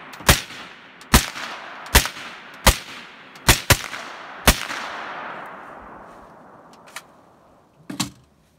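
Suppressed 10.5-inch AR pistol in 5.56 with an AAC SDN-6 7.62 suppressor, fired seven times at a steady pace with one quick double shot. Each shot is a sharp crack followed by a trailing echo, and the echo after the last shot fades over a couple of seconds. A short knock comes near the end.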